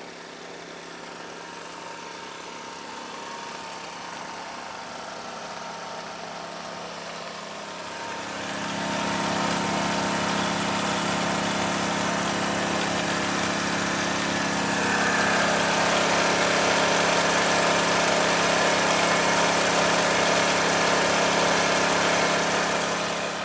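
An engine running steadily at idle. It grows louder about a third of the way in, steps up again past the middle, and cuts off abruptly at the end.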